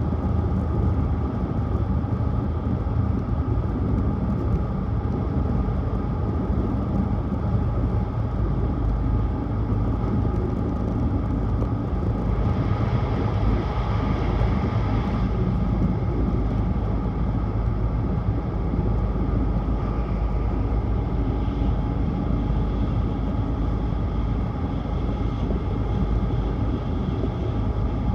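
Running noise of a Tohoku Shinkansen Hayabusa train at speed, heard inside the passenger car: a steady low rumble with a rushing hiss, which turns brighter for about three seconds near the middle.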